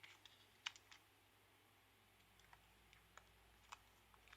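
Near silence with a few faint, scattered clicks of small parts being handled as a Nintendo Switch is put back together, the sharpest about two-thirds of a second in.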